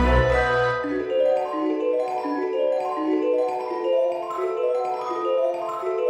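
Background music: a light melody of short, evenly stepping notes, with a deep low part that stops about a second in.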